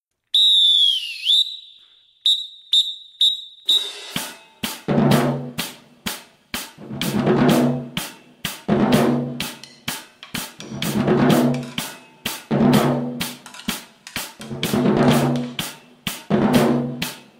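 A whistle gives one long blast, then several short ones, the cue a drum major gives to start a cadence. About four seconds in, a marching band drumline starts a street cadence: rapid snare strokes over tuned bass drums playing low notes in repeating two-second phrases.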